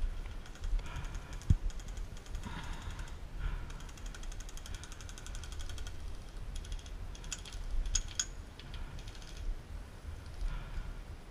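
Rapid strings of sharp clicks from airsoft guns firing in full-auto bursts, in runs lasting a second or more, over a low rumble. A single knock about a second and a half in.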